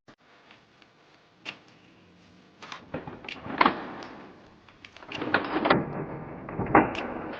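Lego plastic parts clicking and clunking in an irregular series of knocks as a Lego double-barrel shotgun's mechanism is worked by hand, with a busier run of clatter near the end.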